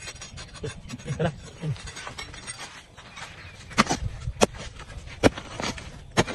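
A hoe chopping into dry, sandy earth: four sharp strikes in the second half, with gritty scraping of soil before and between them.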